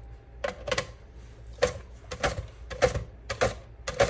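Whole cucumber pushed back and forth over a plastic mandoline slicer's blade. Each pass makes a quick scraping click as a slice is cut off, in a steady run of about a stroke every 0.6 seconds.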